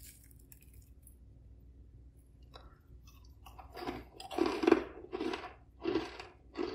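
Crisp, flaky thekua biscuit being chewed: after a few quiet seconds, a run of about five crunches, roughly one every half second.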